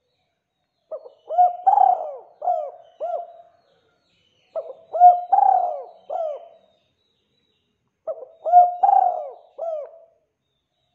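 Spotted dove (tekukur) cooing: three phrases of several notes each, spaced about three and a half seconds apart, with silence between them.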